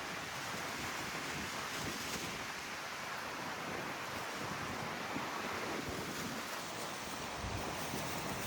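Steady wind blowing, an even rushing hiss with no breaks.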